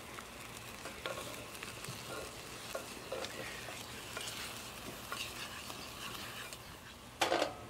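A spoon stirring a bubbling rum and brown-sugar glaze in a small metal saucepan while the rum's alcohol burns off in flames, with a steady sizzle and light scraping and ticking of the spoon in the pan. A brief louder burst of sound near the end.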